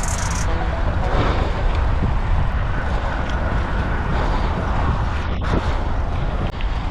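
Wind buffeting an action camera's microphone: a steady, rumbling noise that rises and falls a little.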